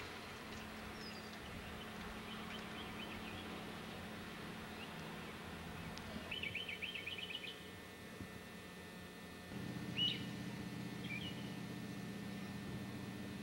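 Birds chirping over a steady low hum, with a quick run of chirps about six seconds in and a single call about ten seconds in.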